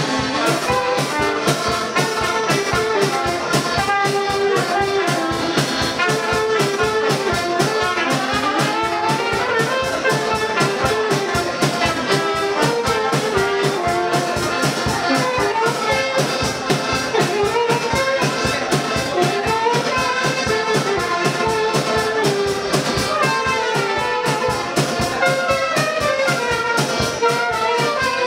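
Live folk dance band playing a lively tune: saxophone and two accordions carrying the melody over a steady drum-kit beat.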